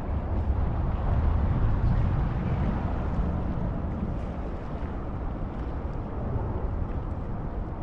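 Sea wind buffeting the microphone: a low, gusting rumble that swells about a second in and eases off after about three seconds.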